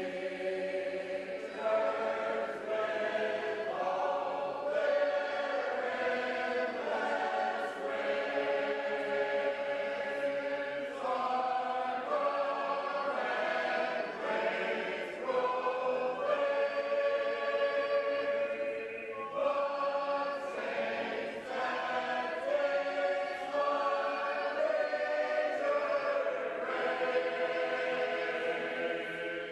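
Shape-note singers singing together a cappella, a full group holding chords that change every second or two.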